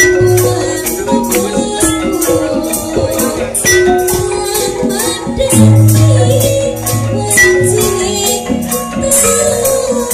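Javanese gamelan ensemble playing: thick-metal metallophones and pot gongs struck hard in a steady pulse, with drums. A deep gong tone rings out about halfway through.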